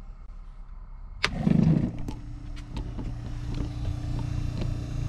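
A rocker switch clicks about a second in, and the van's electric water pump starts up with a brief louder surge, then runs with a steady motor hum as it pressurises the newly installed water system.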